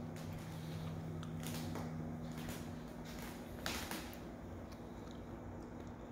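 Quiet room tone with a steady low hum and soft, irregular taps and rustles of footsteps and handling, the sharpest tap about two-thirds of the way in.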